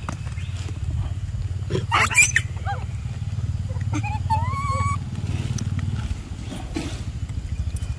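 Macaques calling: a short sharp squeal about two seconds in, then rising squeaky calls around three and four to five seconds in. Under them runs a steady low rumble that eases about six seconds in.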